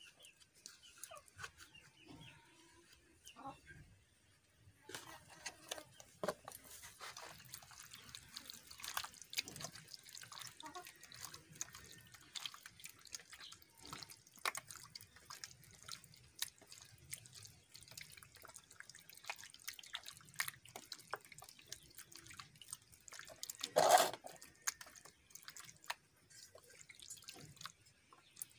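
Hands mixing raw chicken pieces with sour curd (yogurt) in a steel plate, marinating the meat: soft, irregular wet squelching and smacking that starts about five seconds in. One brief, louder sound comes near the end.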